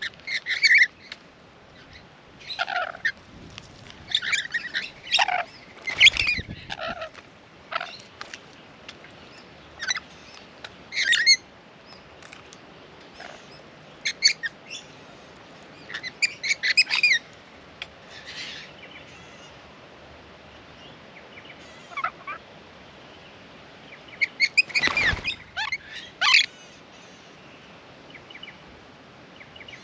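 Rainbow lorikeets giving short, shrill screeching calls in scattered bursts, with quieter gaps in between. Two louder, fuller-sounding bursts come about six seconds in and again later on.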